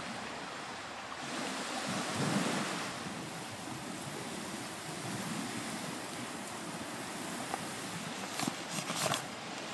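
Small waves washing against the shore, with wind gusting over the microphone. A few sharp clicks come in quick succession near the end.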